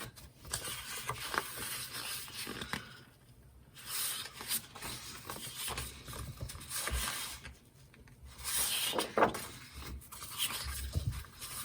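Sheets of patterned designer paper being handled and slid against one another, rustling and scraping in spells with short quiet gaps.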